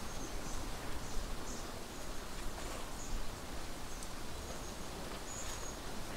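Woodland ambience: a steady rushing background with short, high-pitched bird chirps every second or so.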